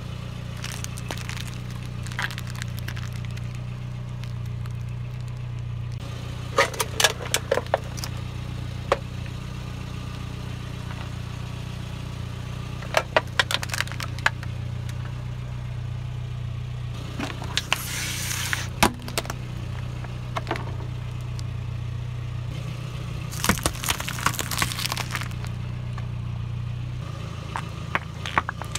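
A car engine idling steadily while its tire rolls slowly over packaged items, giving four short bursts of crackling, snapping and crunching as wrappers and their contents are crushed.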